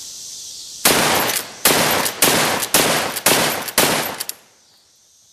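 Six rifle shots in quick succession from a Marlin 336Y .30-30 lever-action carbine, about two a second, fired as fast as the lever can be worked. The string starts about a second in and is over by about four seconds.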